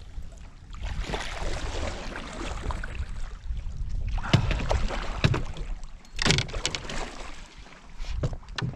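Water splashing and lapping against a canoe while a large northern pike lies in a landing net alongside, with a few sharp knocks against the hull, the loudest about four and six seconds in.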